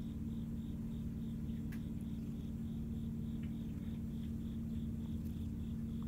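A Siamese cat purring steadily, with a fainter cricket chirping evenly about three times a second.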